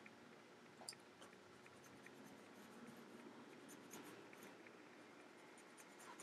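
Near silence with faint scratching and light ticks of a small detail brush on a canvas, one slightly louder tick about a second in.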